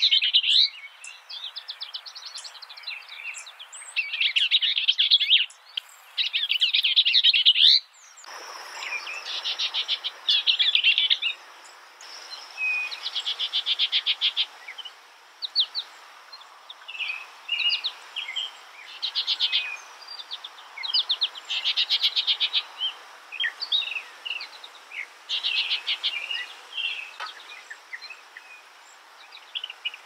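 Bell's vireo singing: short phrases of rapid, chattering notes, each about a second long, repeated after brief pauses. The recording changes about eight seconds in, and a faint steady high tone runs under the song after that.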